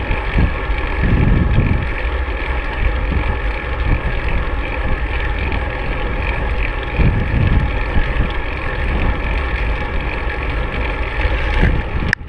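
Wind buffeting the microphone of a handlebar-mounted camera on a moving road bike, over a steady rush of tyre and road noise. Heavier gusts come about a second in and again around seven seconds.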